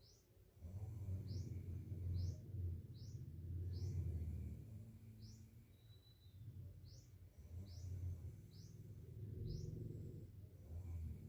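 A man snoring softly in deep sleep, low breaths of a second or two rising and falling every few seconds. A bird chirps short calls about once a second over it.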